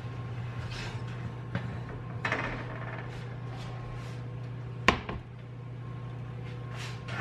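Cast-iron Dutch oven scraping as it is drawn off the oven rack, then set down on a glass cooktop with a single sharp clank about five seconds in, over a steady low hum.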